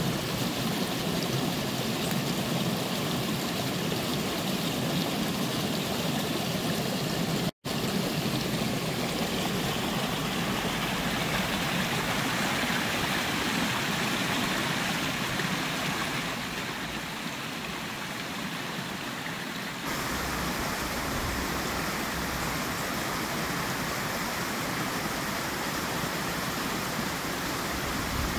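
Small woodland stream running and splashing over stones in a steady rush. The sound cuts out for an instant about a third of the way through and shifts slightly in tone later on.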